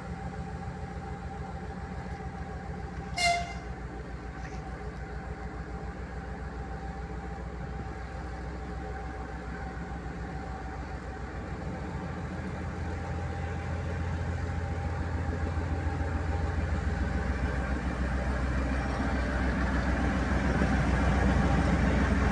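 Soviet-built T679.1 (M62-type) diesel locomotive's two-stroke V12 engine running with a deep, pulsing drone, growing louder over the second half as the locomotive draws up alongside. A brief high-pitched toot sounds about three seconds in.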